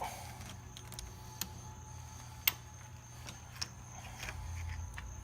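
Scattered small metal clicks of a spark plug socket and extension turned by hand, threading a new NGK CR8E plug into the cylinder head, over a steady low hum. The sharpest click comes about two and a half seconds in.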